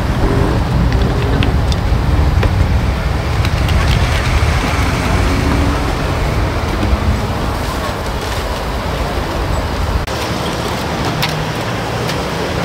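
Busy street-market background noise: a steady low rumble like nearby traffic, with indistinct voices and a few light clicks near the end.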